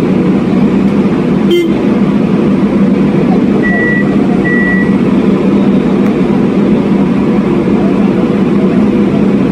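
Hydraulic piling rig's engine running steadily with a deep, even hum. A single sharp knock comes about one and a half seconds in, and two short high beeps about four seconds in.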